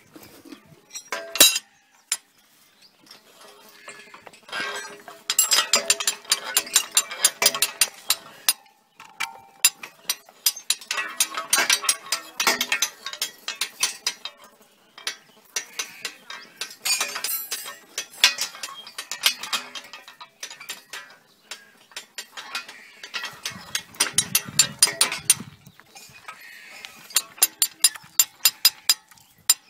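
Hand-cranked geared well winch being turned, its pawl clicking rapidly over the gear teeth, in runs of several seconds with short pauses between them.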